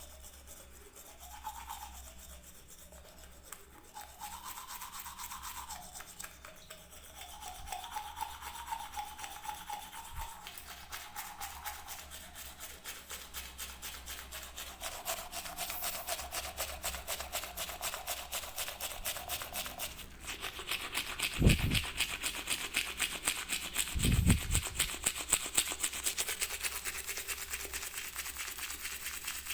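Toothbrush bristles scrubbing back and forth in rapid, even strokes, growing louder and faster-sounding in the second half. Two low thumps, the loudest sounds, come about two and a half seconds apart near the two-thirds mark.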